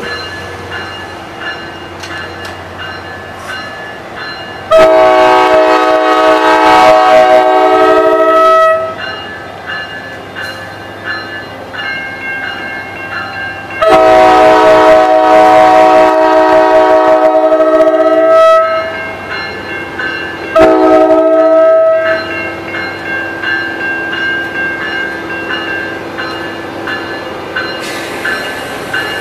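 NJ Transit ALP-45DP locomotive's multi-chime air horn sounding two long blasts and then a short one, the opening of the grade-crossing signal, over the steady hum of the locomotive running between blasts.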